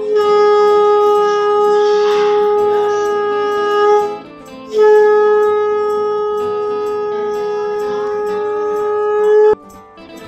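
Conch shell (shankha) blown in two long, steady blasts, the first lasting about four seconds and the second about five, the second cut off sharply. The blowing marks the start of a Hindu Bhai Phonta ritual.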